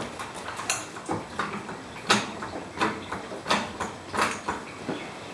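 Floor jack being pumped under a car to lift it: a sharp clack roughly every two-thirds of a second.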